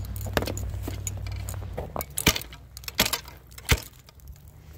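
Steel ice spud bar striking lake ice three times, sharp chopping hits about two-thirds of a second apart, after lighter clinks and crunches. Three solid hits without breaking through: the ice is solid here.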